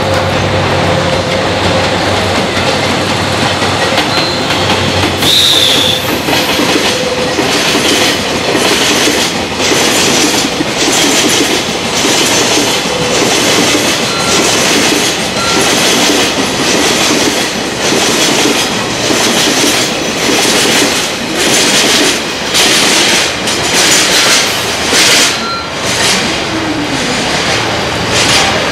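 Red diesel freight locomotive passing with a low engine hum, followed by a long train of tank wagons rolling by, their wheels clacking repeatedly over the rail joints. A brief high wheel squeal comes about five seconds in.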